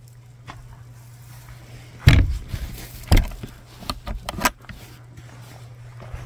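Plywood door of a small pump enclosure swung shut with two heavy thumps, about a second apart, then a quick run of metal clicks and rattles as its latch is fastened.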